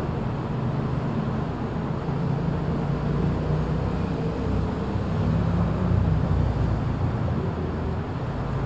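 Steady low background rumble and hum.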